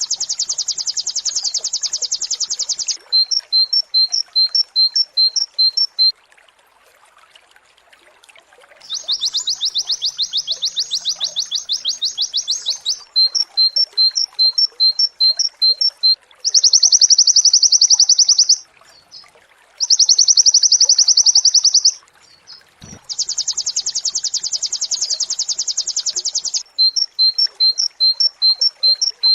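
White-eye (pleci) singing its rapid 'nembak' song: long, high, fast trills lasting a few seconds, alternating with runs of short two-note chirps about three a second, repeated over and over with brief pauses. A single brief low knock about two-thirds of the way through.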